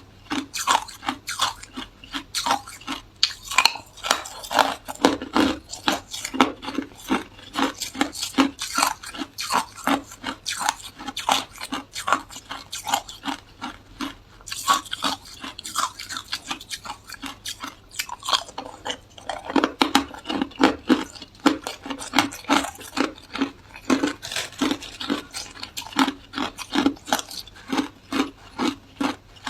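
Ice being chewed close up: sharp crunching and cracking, over a steady chewing rhythm of about two bites a second.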